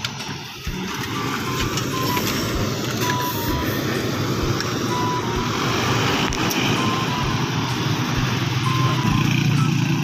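Road traffic going by, with a vehicle passing close near the end, under a thin melody of short repeated notes from background music.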